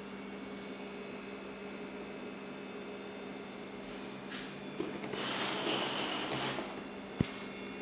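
Fingers rubbing and brushing over a cardboard shoebox lid for about a second and a half, then a single sharp tap, over a steady low hum.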